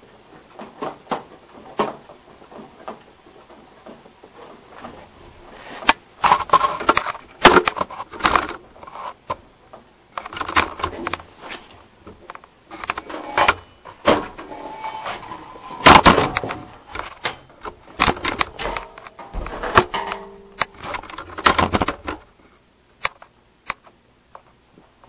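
Spring-loaded Milkovic-style pendulum oscillator rattling and knocking in quick, irregular clicks and clacks as its pendulum is spun around. The clatter builds after a few seconds and stops shortly before the end.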